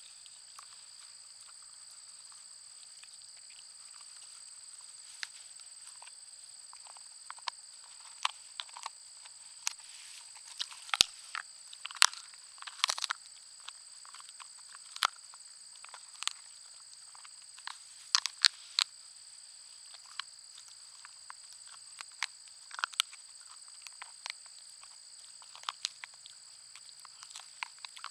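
A Schnauzer–pug mix dog chewing a bone: irregular crunches and gnawing clicks in scattered clusters, over a steady high-pitched drone.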